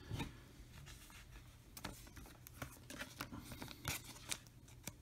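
Faint handling noise of trading-card packs and cards: a scattering of soft ticks and rustles as foil card packs are picked out of the box and moved.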